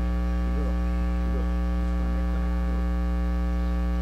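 Steady electrical mains hum in the audio feed: a constant buzz made of many evenly spaced tones, loud enough to cover most other sound. Faint wavering sounds sit underneath it.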